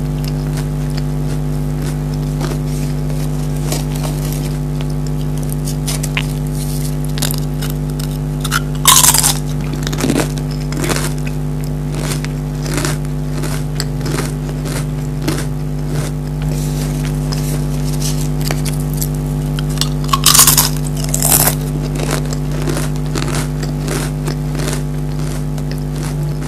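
Pringles potato crisps being bitten and chewed, with many sharp crunches and two louder bursts about 9 and 20 seconds in, over a steady low hum.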